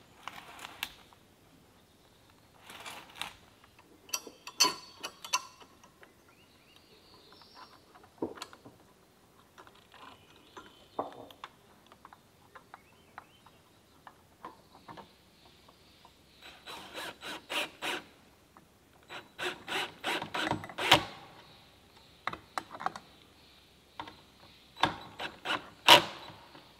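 Metal clanks, scrapes and clicks from a stainless steel stovepipe chimney being fitted and fastened together. The sounds come in irregular bursts, some of them quick runs of sharp clicks, with quiet gaps between.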